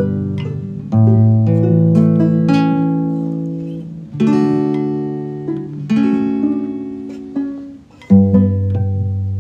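Acoustic guitar playing slow strummed chords in a song with no singing. Each chord is left to ring and fade before the next, with a new chord every two to three seconds.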